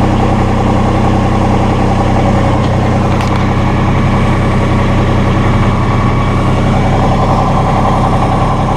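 Massey Ferguson GC1720 subcompact tractor's diesel engine idling steadily.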